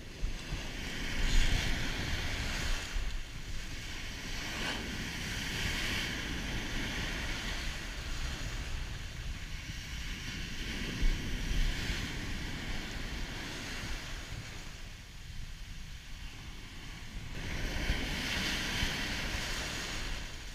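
Heavy surf breaking and washing up a sandy beach, its hiss swelling in surges a few seconds apart, with a steady low rumble of wind buffeting the microphone.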